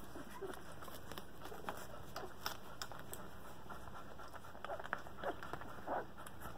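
Two-week-old Airedale terrier puppies nursing: scattered wet suckling clicks and smacks, with a couple of short squeaks or grunts near the end.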